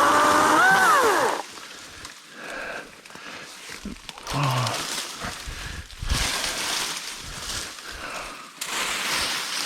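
EGO 14-inch battery chainsaw's electric motor whining as it finishes a cut through a branch. Its pitch jumps up as the cut breaks through, then it winds down and stops about a second and a half in. Rustling and crackling of cut branches being moved follow.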